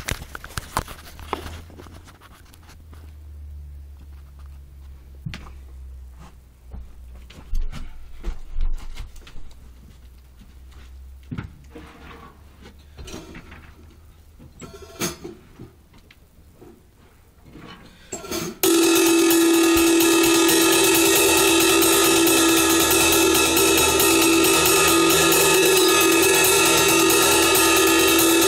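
Knocks and rustles of the camera being handled, then about two-thirds of the way in a drum kit starts suddenly and is played loud and nonstop, the cymbals washing over everything at an even, unbroken loudness.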